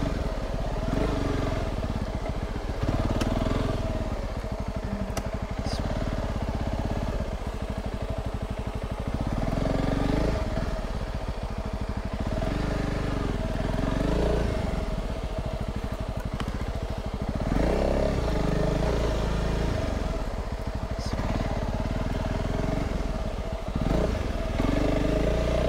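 Honda CRF300 Rally's single-cylinder engine being ridden slowly over a rough dirt track, its pitch rising and falling every second or two as the throttle is opened and eased off. A few light clicks come through along the way.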